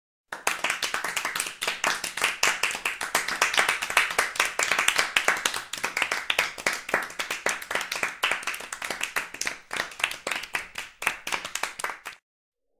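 Hands clapping, a fast irregular run of sharp claps from a few people, with a faint steady hum beneath. It starts suddenly and stops abruptly shortly before music begins.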